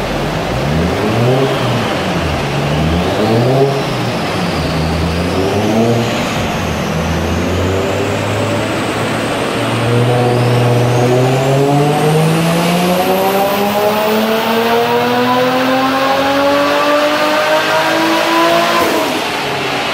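Nissan Skyline R34 GTT's turbocharged RB25DET straight-six, fitted with a screamer pipe, revving on a chassis dyno: several blips up and back down at first, then one long full-throttle pull climbing steadily in pitch for about nine seconds with a high whine rising alongside it, and a sharp let-off near the end.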